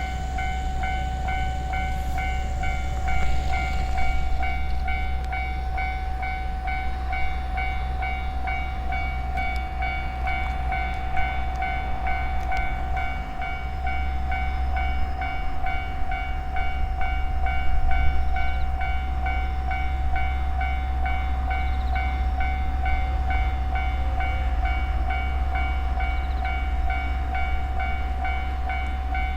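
Japanese railway level-crossing warning alarm ringing over and over in an even, steady rhythm, over a continuous low rumble.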